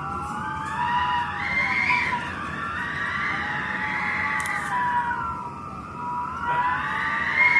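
Strong wind whistling loudly, with several high tones rising and falling together as the gusts swell and ease, dipping about six seconds in and then climbing again.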